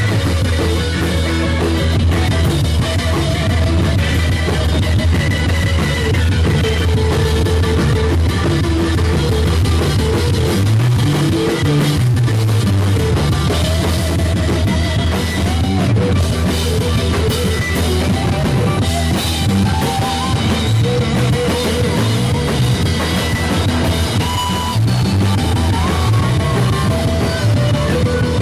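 Live rock band playing loudly: electric guitars, bass guitar and a drum kit, with a keyboard on stage.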